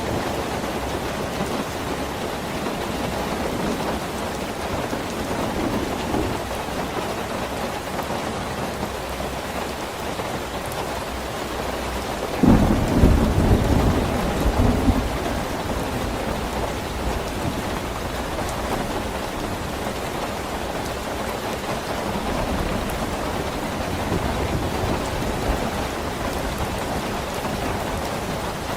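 Steady rain falling, with a sudden clap of thunder about twelve seconds in that rumbles low for two or three seconds before fading back into the rain.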